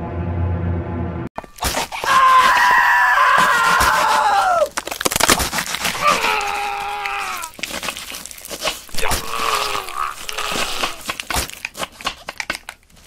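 Eerie music cuts off about a second in. Over the following seconds come three long, high screams, each falling in pitch as it dies away, amid sharp cracking and crunching hits: sound effects of a violent attack.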